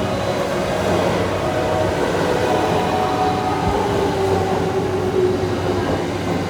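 E217 series electric commuter train pulling into a station: steady running rumble of wheels on rail with a whining tone that slides lower as the train slows.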